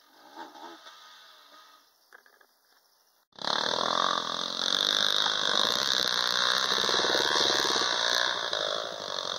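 Dirt bike engines running at low revs. They cut in suddenly about three seconds in after a quiet start, with a steady high hiss over them.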